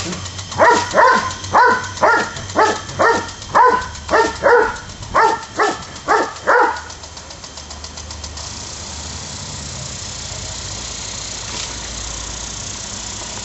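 Doberman barking at the spray of a lawn sprinkler: a quick run of about a dozen barks over six seconds that then stops. Afterwards the steady hiss of the sprinkler's water spray remains.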